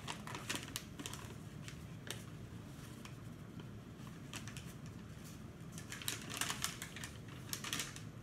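Paper and plastic packaging being handled: scattered light clicks and crinkles, with two denser bursts of rustling near the end.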